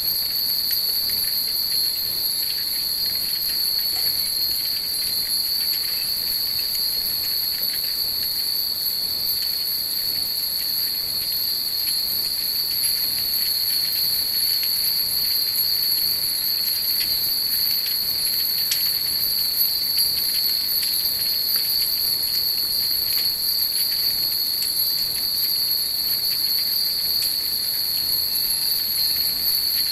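Many wind chimes (fūrin) tinkling in small, irregular scattered strikes. Behind them runs a steady, shrill high two-toned drone, most likely a chorus of night insects, which is the loudest sound throughout.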